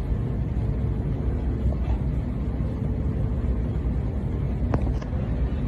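Steady low background rumble, with a couple of faint clicks near the end.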